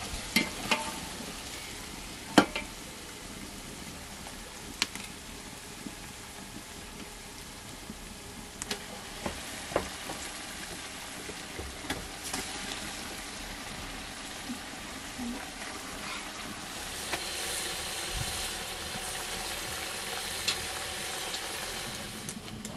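Meat and tomato stew sizzling in a metal pot over a wood fire, with a metal ladle knocking against the pot a dozen or so times, loudest about two seconds in. The sizzling grows louder for a few seconds near the end.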